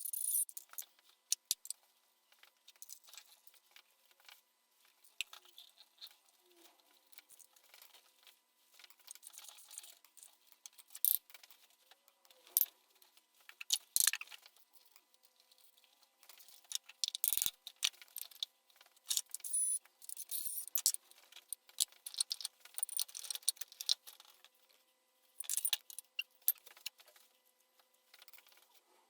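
Small metal parts and hand tools clinking and jangling as they are handled during a gearbox strip-down, in irregular bursts of sharp clicks. A louder knock comes about halfway through, and a duller thud shortly after.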